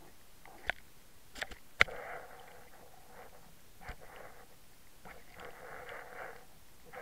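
Underwater camera towed on a fishing line: muffled water noise rushing past its housing in surges as the line is pulled, with sharp clicks and knocks in the first two seconds (the loudest nearly two seconds in) and one more about four seconds in.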